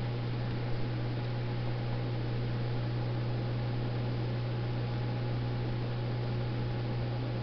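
A steady low electrical hum with an even hiss over it.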